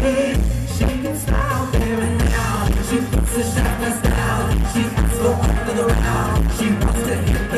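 Live pop band playing with a strong, steady bass beat while a male vocalist sings into a microphone.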